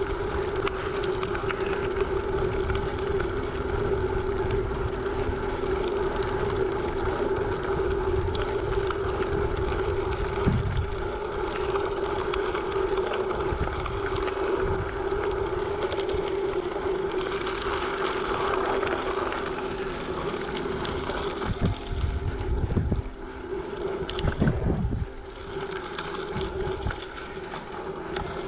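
Bicycle tyres rolling over rough, loose gravel, a steady crunching rattle with a constant hum underneath. Wind rumbles on the microphone in a few gusts late on.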